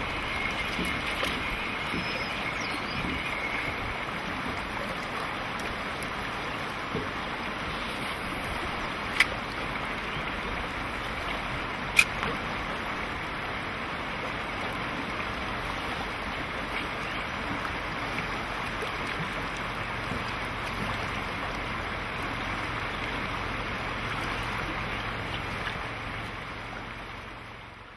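Steady rush of flowing river water around a fishing boat, with two sharp clicks in the middle; it fades out near the end.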